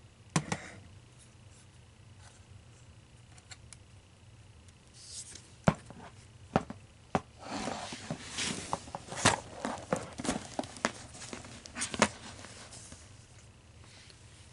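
Objects and packaging being handled on a table: a couple of sharp clicks near the start, then from about five seconds in a busy stretch of clicks, taps and rustling that dies down near the end.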